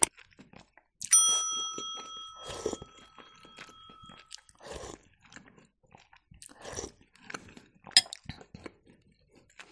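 A bright bell ding about a second in, ringing out for about three seconds: the notification-bell sound effect of a YouTube subscribe animation. Short, soft mouth sounds of eating soup from a spoon and chewing follow.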